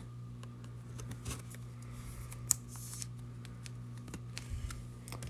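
Faint clicks and rustles of trading cards and a clear plastic card sleeve being handled, with one sharper click about two and a half seconds in.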